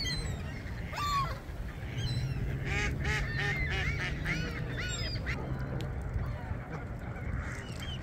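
Canada geese honking: a few scattered calls, then a quick run of honks between about three and five seconds in, over a steady low rumble.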